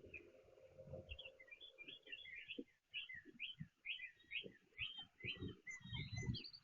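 Several small songbirds chirping in a quick, busy chatter of short notes, with soft low thumps now and then underneath.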